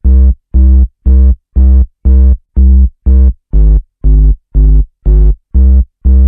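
Background electronic music: synthesizer chords sounding in short, even stabs about twice a second over a heavy bass.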